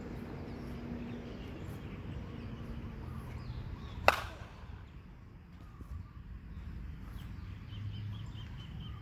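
A silver metal bat strikes a pitched ball once, about four seconds in: a sharp crack with a short ring.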